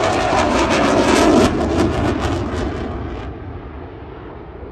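Eurofighter Typhoon's twin EJ200 jet engines: a loud jet roar with a rapid, fine crackle that fades away after about three seconds.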